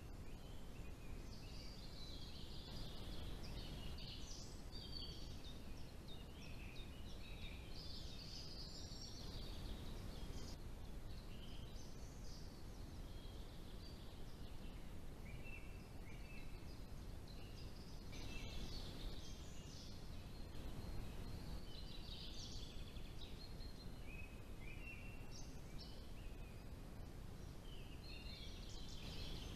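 Small wild songbirds singing and calling, a run of short, varied, high chirping phrases repeating throughout, over a steady low background rumble.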